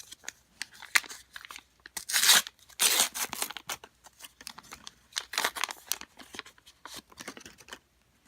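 Crinkling and tearing of a trading-card pack wrapper, with cards being handled. There are several louder rustling tears about two, three and five seconds in, among small clicks.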